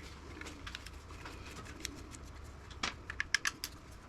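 Light clicks and taps of small plastic and metal parts as the air conditioner's power-cord plug is worked apart by hand. There is a quick run of clicks about three seconds in.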